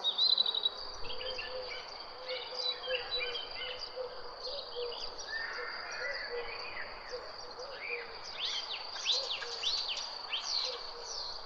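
Garden birdsong: several small birds chirping and twittering over a steady, high-pitched drone, with a quick trill right at the start and a burst of louder, sweeping chirps late on.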